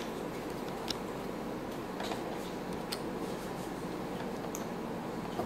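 Steady low room hum with a few faint, sharp clicks spread through it: small handling noises while a stuffed turkey is tied up with kitchen string.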